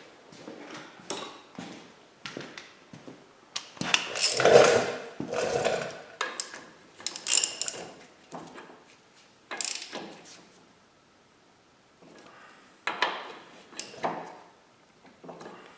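Hand-tool work on a metal axle: irregular clicks, clanks and rattles of a socket wrench turning the 27 mm rear axle nut. The loudest clatter comes about four to six seconds in.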